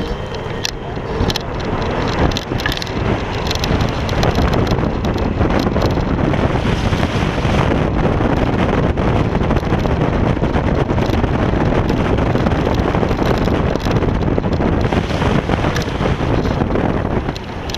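Wind rushing over the microphone of a GoPro Hero 3 mounted low on a moving Kaabo Wolf King GT electric scooter, mixed with the rumble of its tyres on asphalt. The noise grows louder over the first few seconds, then holds steady.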